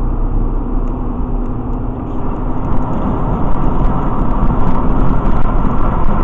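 Steady road noise of a car driving at highway speed, heard from inside the cabin: tyre rumble and engine drone, growing a little louder about halfway through.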